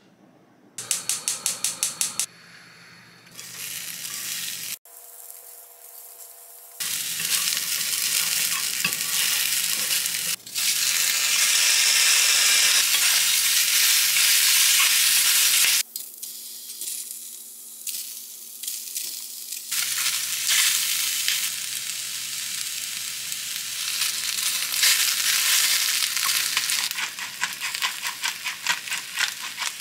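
Chicken breast and tree ear mushrooms sizzling as they stir-fry in a small pan, stirred with chopsticks. A brief run of rapid clicking about a second in, and the sizzle drops away for a few seconds past the middle.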